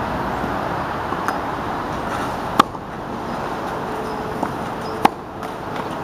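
Tennis racket striking the ball on forehand drives: two sharp, loud pops about two and a half seconds apart, with fainter ball pops in between.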